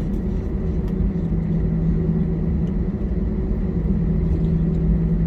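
Jet airliner's engines heard inside the cabin: a steady rumble with a low, even hum.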